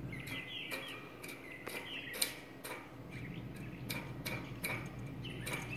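Quiet outdoor ambience: scattered sharp ticks and clicks, the strongest about two seconds in, with a few short bird chirps.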